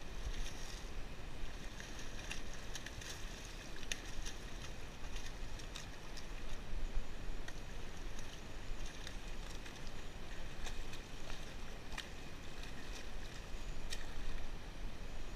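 Water splashing against the rocks where a hooked fish thrashes at the surface, with wind rumbling on the camera microphone and scattered sharp clicks.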